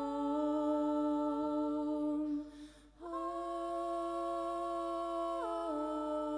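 Quiet passage of a live rock song: steady held notes with many overtones, breaking off briefly about two and a half seconds in, resuming on a slightly higher note and stepping down in pitch near the end.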